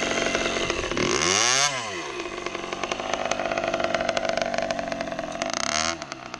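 Two-stroke dirt bike engine under a beginner rider in first gear, never reaching the power band. It revs up sharply and falls back about a second in, runs on steadily, then revs briefly again near the end and drops off.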